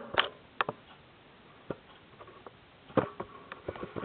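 Scattered sharp clicks and light knocks from handling the metal parts and tools of a Durst M605 enlarger being assembled: a couple near the start, a single one before the middle, and a quick cluster about three seconds in.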